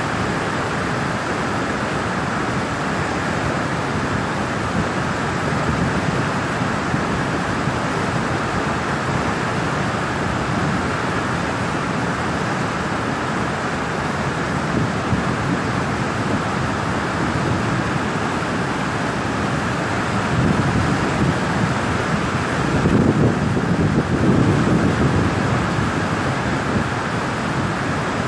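Floodwater rushing through the open sluice gates of a dam and churning in the river below: a loud, steady rush of white water. It swells louder and deeper for a few seconds about three-quarters of the way through.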